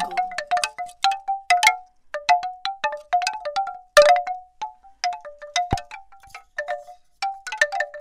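Bamboo wind chimes: hollow wooden tubes knocking together at an irregular pace, a few clacks a second, each with a short hollow ring. The loudest knock comes about four seconds in.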